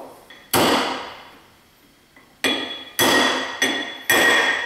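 Hammer blows on a socket driving a new pilot bearing into a Honda S2000 flywheel: one blow, a pause, then four quicker blows. The later blows ring with a clear metallic tone, the change in sound that marks the bearing seating fully.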